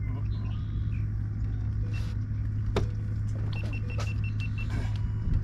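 Boat motor running with a steady low hum, a few scattered clicks, and a quick run of about eight short high beeps about three and a half seconds in.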